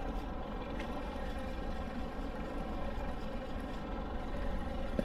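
Fishing boat's engine running steadily, a constant low hum with an even drone of tones, and one short knock near the end.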